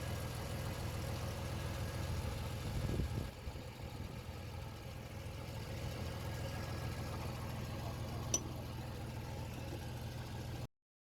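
Chevy S10 pickup's V6 engine idling steadily, with a single short click about eight seconds in. The sound stops abruptly near the end.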